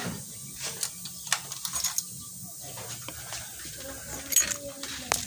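Quiet background with a faint low hum and scattered light clicks and knocks, a handful spread across the few seconds.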